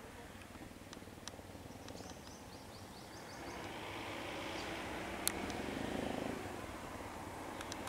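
Vehicle engines running on the road, the sound growing louder from about three and a half seconds in as a jeep pulls up. A quick run of faint bird chirps comes about two seconds in, with a few sharp clicks scattered through.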